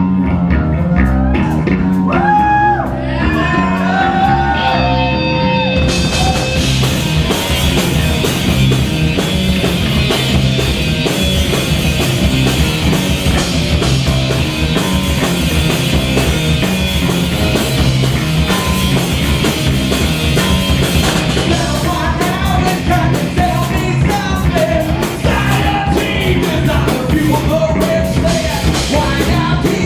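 Live hard/stoner rock band playing loudly: distorted electric guitar, bass guitar and drum kit. For the first few seconds a lead guitar plays notes that slide up and down, then about six seconds in the full band comes in harder with cymbals crashing throughout.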